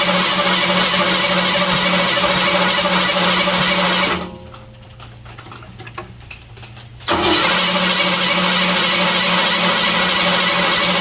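Starter motor cranking a 1966 Ford Bronco's engine, which turns over steadily without catching. It stops for about three seconds partway through, then cranks again; fuel is still being drawn through to the engine on its first start after restoration.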